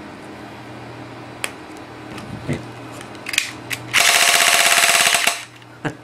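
A few sharp clicks as battery snaps go on, then an electric airsoft gun's motor and gearbox cycle on full auto for about a second and a half, run off 9-volt batteries wired in series.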